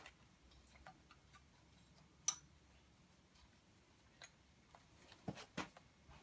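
Faint, scattered clicks and light knocks of tools and metal parts being handled while a timing belt is fitted, with one sharp click about two seconds in and two knocks near the end.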